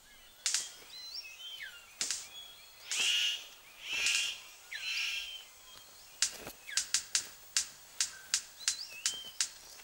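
Male superb bird of paradise courtship display: a few sharp clicks and three short buzzy, hissing calls, then from about six seconds in a quick run of sharp clicks, about three a second. Thin whistled chirps of forest birds run underneath.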